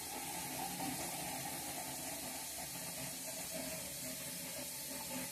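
Kitchen tap running steadily into a pot being filled with water.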